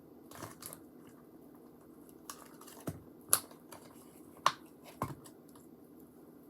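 Scattered sharp clicks and taps from slime being mixed in a cup, about six of them spread a second or so apart, over a low steady room hum.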